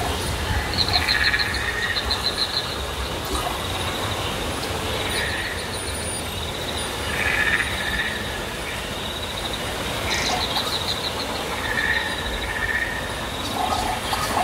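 Rapid trilling chirps, frog- or insect-like, come in short runs several times over a steady high-pitched whine and a constant outdoor background noise.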